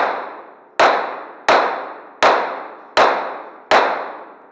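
Second-generation Glock 17 9mm pistol firing six shots at a steady pace, about three-quarters of a second apart. Each report rings on in the echo of an indoor range.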